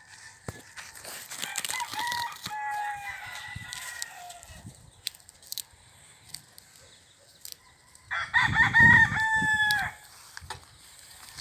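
A rooster crowing twice: a fainter crow about a second and a half in and a louder one about eight seconds in. Short rustles and clicks fall in between.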